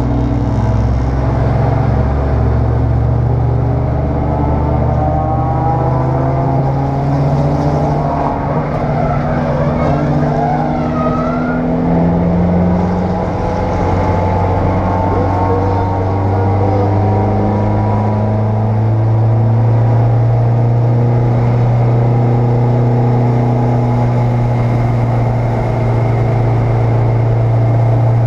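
Race car engine heard from inside the cabin, running hard at speed on the track, its pitch rising and dropping in steps through the first half, then holding steady and at its loudest over the second half.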